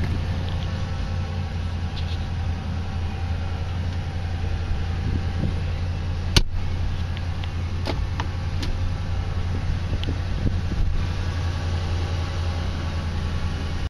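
Ram pickup truck's engine idling steadily, heard inside the cab as a low hum, with a few sharp clicks from hands on the interior trim, the loudest about six seconds in as the center console armrest is handled.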